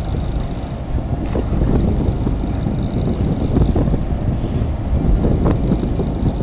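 Fishing boat under way: a steady low rumble of engine and water, with wind buffeting the microphone.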